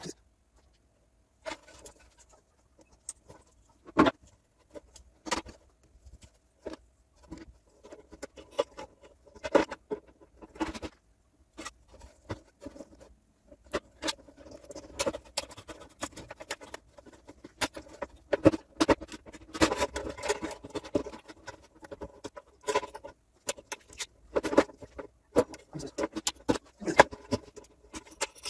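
Irregular clicks, taps and clatter of parts being handled and fitted as a Gaggia Classic espresso machine is reassembled, getting busier from about halfway in.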